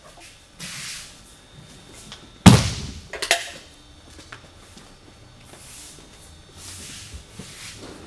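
A judoka thrown onto tatami mats, landing in a breakfall: a loud thud about two and a half seconds in, followed by a second, sharper slap under a second later. Soft swishes of bare feet sliding on the mats come before and after.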